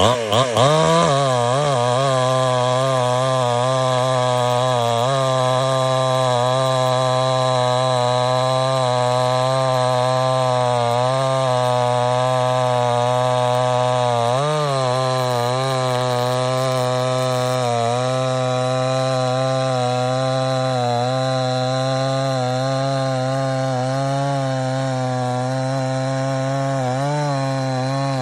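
Chainsaw running at a steady speed for the whole stretch, its pitch wavering slightly. A few brief blips in engine speed come along the way: about five seconds in, midway, and near the end.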